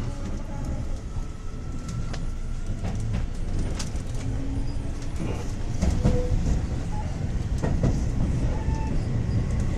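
Metro train carriage heard from inside as it pulls away: a steady low rumble with scattered clacks and knocks from the wheels and carriage, slowly growing louder.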